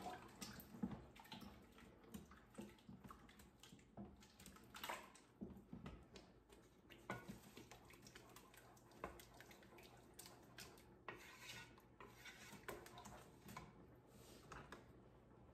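Wooden spoon stirring sauce in a cooking pot, with faint, irregular knocks and scrapes of the spoon against the pot.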